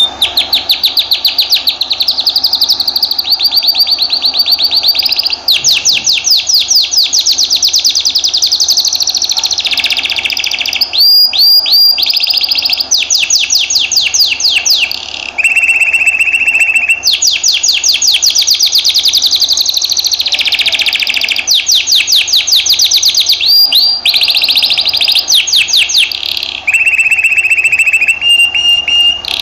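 Domestic canary singing a long, loud, unbroken song of rapid repeated-note trills, switching every few seconds between higher sweeping trills and lower steady ones.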